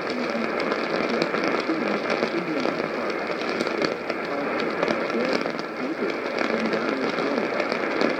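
AM radio receiver on a weak signal: steady hiss and crackle of static, with a faint, wavering broadcast voice buried under the noise.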